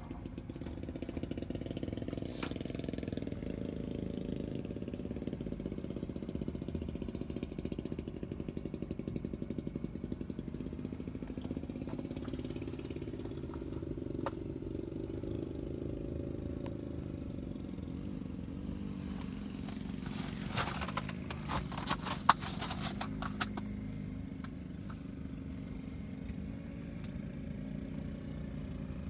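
A steady low mechanical hum throughout. About twenty seconds in there is a short run of clattering and knocking.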